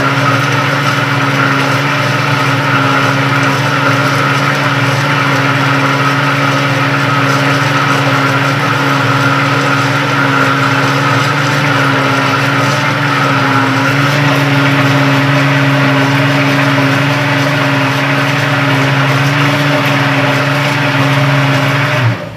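Kitchen blender motor running steadily while it blends a pie batter, then switched off abruptly near the end.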